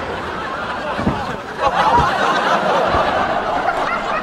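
A group of people laughing and chattering, many voices overlapping, growing louder about two seconds in, with a couple of low thumps.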